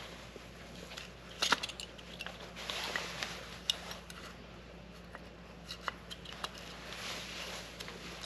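Light clicks, taps and rustling of small AR-15 lower receiver parts and tools being handled, with a few sharper clicks, the loudest about a second and a half in.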